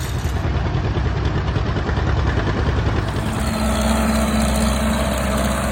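An engine running steadily; its note changes about three and a half seconds in.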